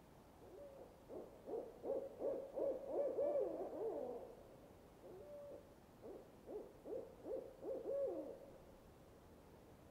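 Owl hooting in two quick runs of pitched hoots with a pause of about a second between them; the first run ends in a falling slur.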